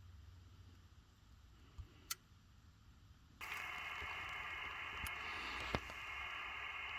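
Amateur radio receiver audio cuts in suddenly about halfway: band hiss carrying many faint steady tones of FT8 digital signals. Before it come two light clicks, and there is a sharp click near the end.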